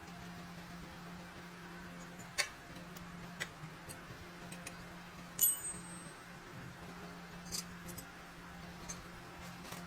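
Scattered light clicks and taps of metal parts being handled, with one sharp ringing clink about five and a half seconds in, over a steady low hum.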